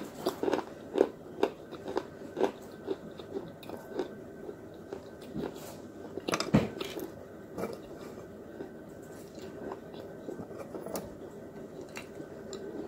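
Crunching bites and chewing of hard, brittle pieces of terracotta clay shard and white chalk-like sticks, close to the microphone. Sharp crunches come about two a second at first. There is one loud crunch about halfway through, then quieter chewing with occasional crunches.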